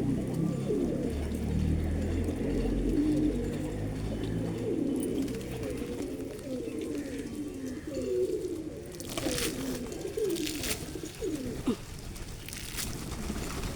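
Several pigeons cooing, with low, overlapping coos throughout. A few short sharp noises come in the second half.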